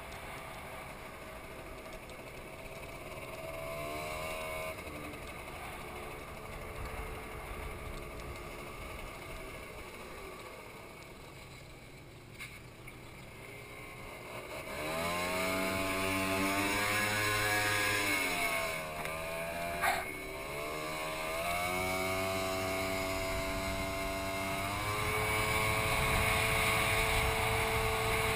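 Motor scooter engine running while riding, its pitch rising and falling with the throttle; quieter at first, louder from about halfway as it speeds up, eases back briefly, then holds a steady pitch near the end.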